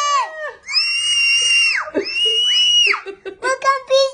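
Little girl squealing with excitement: a held high shout that fades out, then two very high-pitched shrieks of about a second each, then short excited babbling near the end.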